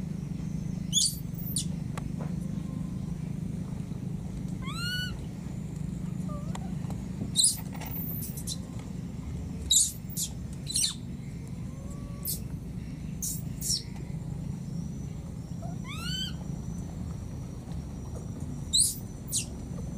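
Infant macaque giving short, very high-pitched calls every second or two, a few of them arching up and down in pitch, over a steady low rumble. These are the distress calls of a baby separated from its mother.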